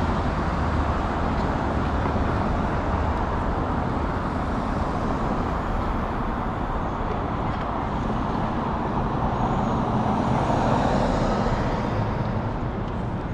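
City street traffic: steady road noise of passing cars, with one vehicle passing louder about ten seconds in.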